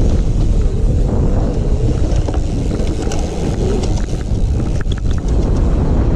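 Wind buffeting the microphone of a camera riding along on a moving mountain bike, with scattered clicks and rattles from the bike over the trail.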